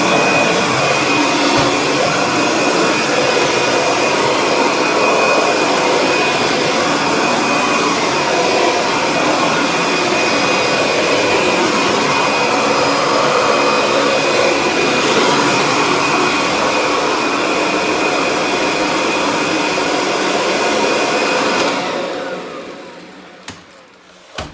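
Kirby Sentria upright vacuum cleaner running steadily with a high whine, then switched off near the end, its motor winding down over about two seconds.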